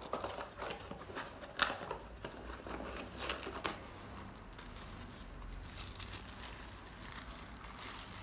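Cardboard packaging being handled: light taps and scrapes as the box lid is lifted off, with one sharp knock about one and a half seconds in, then plastic bag crinkling through the second half.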